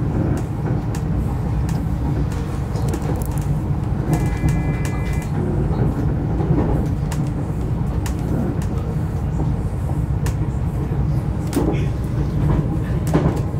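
Passenger train running, heard from inside the carriage: a steady low rumble with scattered clicks and rattles. About four seconds in comes a short electronic beep lasting about a second.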